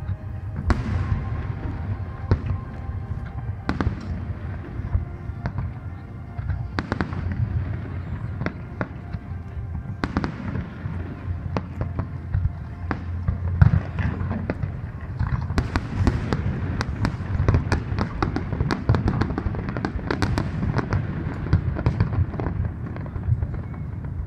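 Aerial firework shells bursting in a barrage of sharp bangs over a low rumble. The bangs come thickest, with crackling, in the second half, and one bang stands out as the loudest just past the middle.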